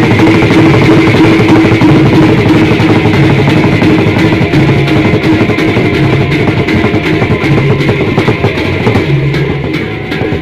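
Traditional Sasak ensemble playing loudly: several barrel drums beaten by hand in a fast, dense rhythm, with metallic clashing and a few held low notes underneath.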